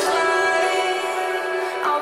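Background music of sustained melodic tones, with no beat.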